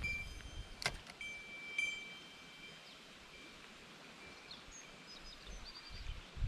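Fishing reel being worked while lure fishing: a few sharp clicks and a thin, steady whine from the reel. Small birds chirp briefly in the second half.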